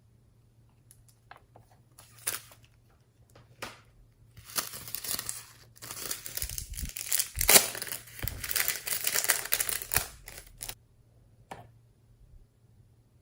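Slime being squished and stretched by hand with a wet crackling and popping: a few scattered pops at first, then several seconds of dense crackling that stops near the end, followed by one last pop.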